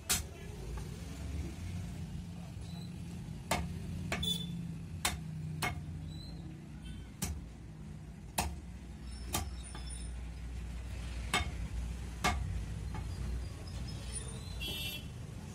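A heavy butcher's cleaver chopping goat meat on a wooden chopping block: about a dozen sharp knocks at irregular spacing, one every second or two, over a low steady rumble of traffic.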